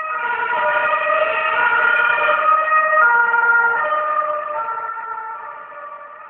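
Two-tone emergency vehicle siren (German Martinshorn) passing, stepping back and forth between two pitches, growing louder to a peak about halfway and then fading as it moves away.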